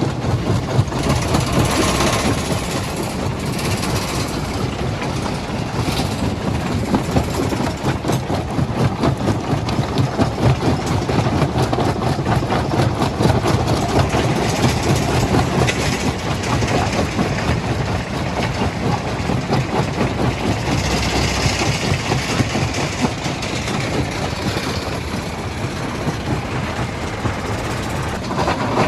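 Stone crushing plant running: a steady, loud machine drone with a continuous dense rattle and clatter of rock passing through the jaw crusher.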